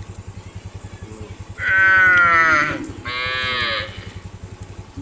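Cow mooing twice: a long, loud call, then a shorter one right after.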